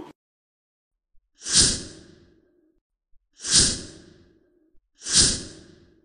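A heavy exhaled sigh, repeated three times about two seconds apart. Each starts sharply and fades away over about a second, and the three sound identical, like one sigh effect played over again.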